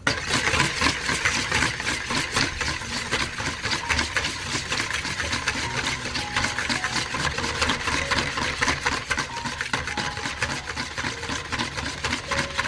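Wire balloon whisk beating egg yolks by hand in a mixing bowl: a fast, steady clatter of the wires against the sides of the bowl.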